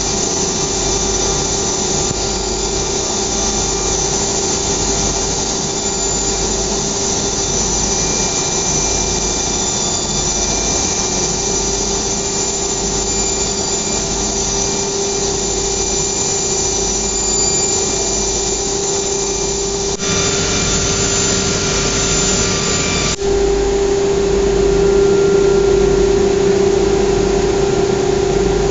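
Wood-panel CNC router's spindle running and machining a wood-grain board, a steady whine over a continuous rush of dust extraction. The sound grows brighter about twenty seconds in and steps louder a few seconds later.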